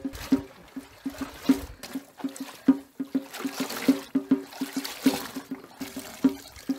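Water splashing and trickling as batik cloth is worked in a steaming pot of hot water and lifted out, streaming back into the pot: the hot bath that strips the wax and sets the dye. Under it, background music with a steady wood-block-like knocking beat.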